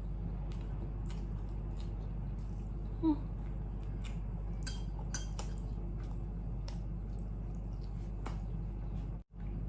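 Scattered light clinks and taps of utensils and dishes during a meal, over a steady low hum. A brief pitched sound about three seconds in is the loudest moment.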